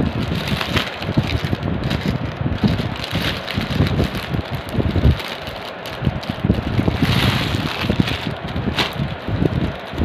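Wind buffeting the microphone: an uneven, gusting low rumble with some scattered rustling above it.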